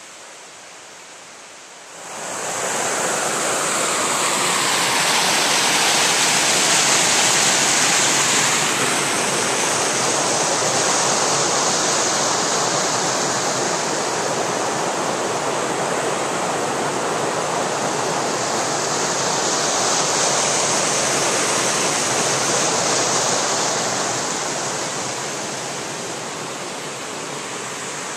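Steady rush of flowing water, a broad hiss that comes in abruptly about two seconds in and eases off near the end.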